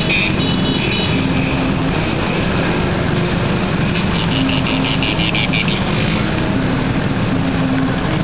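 A pack of motor scooters riding together, many small engines running at once, heard from one of the scooters in the group. A run of rapid high-pitched beeps comes in about four seconds in and lasts about two seconds.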